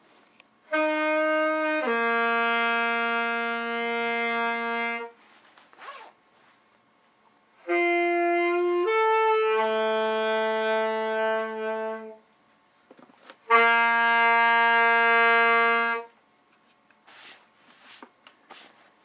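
Saxophone playing three long held notes with pauses between them, the first two each opening with a brief note before moving to the held one.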